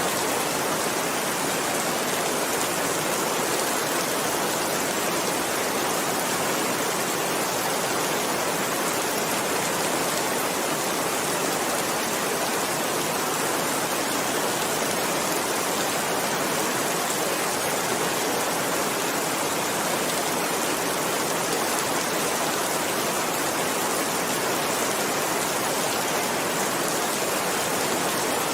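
Steady rain, an even unbroken hiss with no let-up or crackles.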